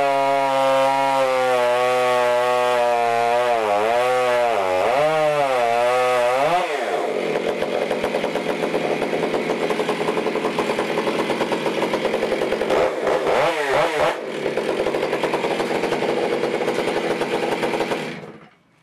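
Modified Stihl MS661 two-stroke chainsaw on a chainsaw mill running at high speed, its pitch dipping and rising; about six seconds in it drops to a slow, pulsing idle, revs up once briefly around thirteen seconds, then is shut off near the end.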